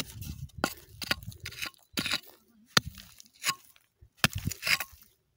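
Small digging hoe striking and scraping dry, stony soil: about seven sharp crunching hits, irregularly spaced, with short pauses between them.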